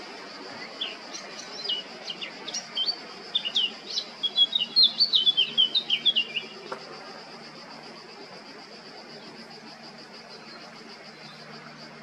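Male Eurasian blackcap singing: a quick warbling phrase of short, high notes that grows louder and lasts about six seconds, over a steady high insect buzz.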